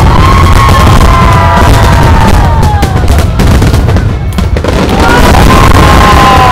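Fireworks going off, a heavy continuous booming that overloads the recording, with a run of sharp crackling bangs in the middle. Long whistling tones, several at once, hold and then slide down in pitch.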